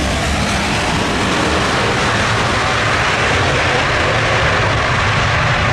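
Boeing 777-300ER's GE90 jet engines running loud and steady as the airliner rolls out along the runway just after touchdown, swelling a little midway.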